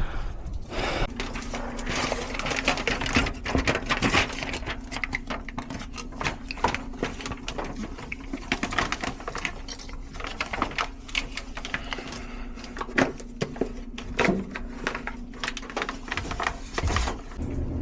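Work handling noises: many short clicks, taps and clatters over a steady low hum.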